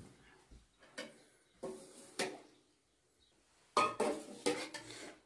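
Kitchenware being handled: a few separate clinks and knocks, then a quicker run of clatter about four seconds in.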